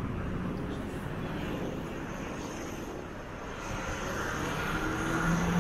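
Airplane flying over: a steady low rumble that grows louder over the last couple of seconds, with a faint whine coming in near the end.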